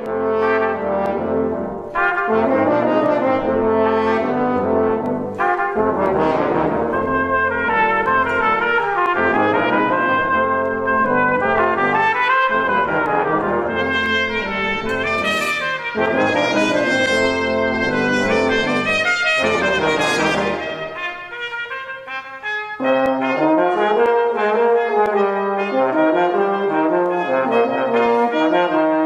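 Brass quintet of trumpets, French horn, trombone and tuba playing a lively piece together. About three-quarters of the way through the music thins and softens for a moment, then carries on without the lowest bass line.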